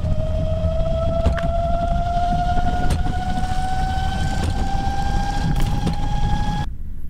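Electric motor of a solar-powered railway trolley whining as it runs along the track, its pitch rising slowly as the trolley gathers speed, over a loud rumble of wheels on rail with a few sharp clicks. The sound cuts off suddenly near the end.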